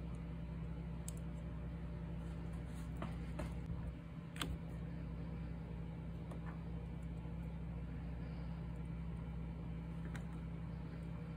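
Light clicks and taps of plastic wiring connectors and harness being handled by hand: a few scattered ones, the sharpest about four and a half seconds in. Under them runs a steady low hum.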